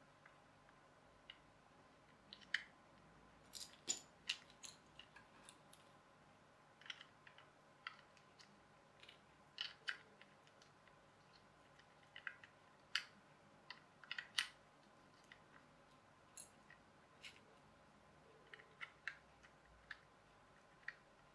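Small plastic gears and housing parts of a clockwork toy car clicking and tapping as they are handled and fitted together: irregular sharp little clicks, sometimes several close together, with quiet between.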